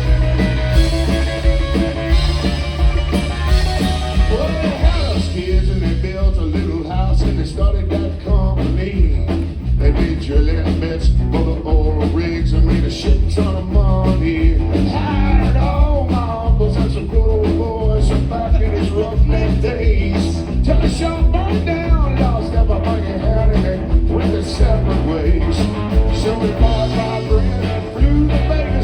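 Live rock band playing an instrumental stretch of a country-rock song, electric guitar over bass and drums with a steady beat.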